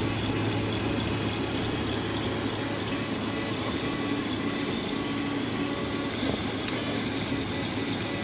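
FDM 3D printer running: a steady fan hiss with the stepper motors whirring in short, changing tones as the print head moves.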